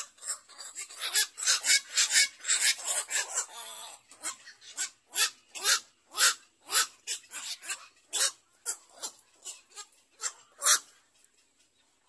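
Black-crowned night heron nestlings giving harsh, rasping calls, crowded together for the first few seconds and then spaced about two a second, stopping about a second before the end.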